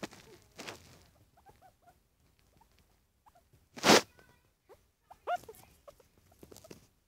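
Pet guinea pig making short, scattered squeaks while being stroked, each sliding up or down in pitch. About four seconds in, a short loud rustle.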